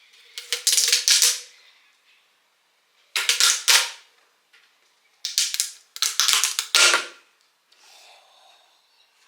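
Four short bursts of rapid clicking and rattling, each about a second long, from hard objects being handled.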